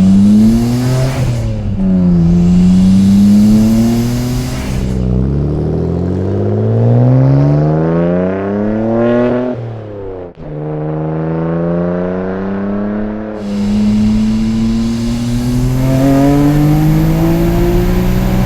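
Nissan Skyline R33 GT-R's twin-turbo RB26 straight-six, breathing through a Tomei titanium exhaust, accelerating hard through the gears. The engine note climbs in several long pulls and drops back sharply at each gear change.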